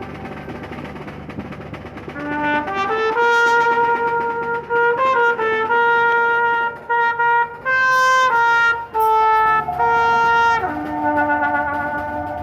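Street brass band playing, trumpets leading. A held chord gives way about two seconds in to a loud melody of sustained notes, which settles back onto a held chord and fades near the end.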